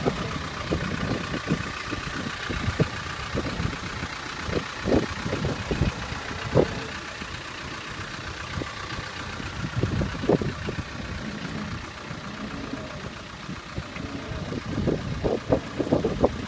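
Land Rover Defender 300Tdi four-cylinder turbodiesel running at low revs as the truck crawls down a rocky track, with irregular low thumps and knocks throughout.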